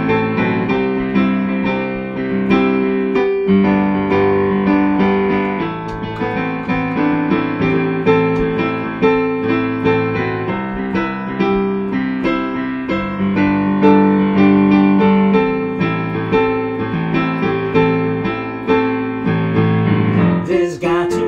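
Yamaha digital piano playing an instrumental passage of held chords with a melody over them, the chords changing every second or two.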